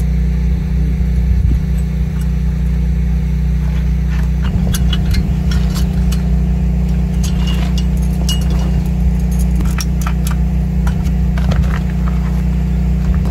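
A steady low mechanical hum, with scattered light clicks and clinks from the metal tubes and fittings of a shed frame being handled.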